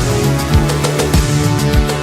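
Background electronic music with a steady beat of low drum hits.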